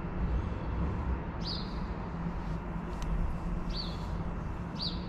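A small bird calling, three short high chirps, each a quick rising-and-falling note, over a steady low rumble with a faint hum.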